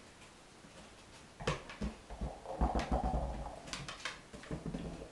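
A Chesapeake Bay retriever working a rubber treat-dispensing toy for her dinner, nosing and mouthing it so it knocks and clatters on the wooden floor. The irregular knocks and thuds start about a second and a half in, with a busy stretch in the middle.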